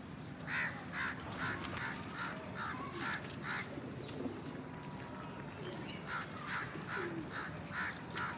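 A crow cawing in two quick runs of about seven or eight harsh calls each, the first starting about half a second in and the second about six seconds in. Faint low coos from the pigeons come in between.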